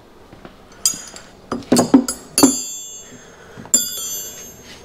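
Steel hand tools clinking together: about six sharp metallic clinks, each with a bright ringing after it, the loudest near the middle.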